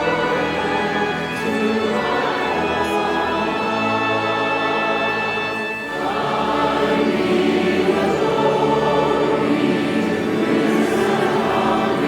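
Choir singing a sacred piece in sustained, blended chords, dipping briefly about six seconds in before coming back fuller.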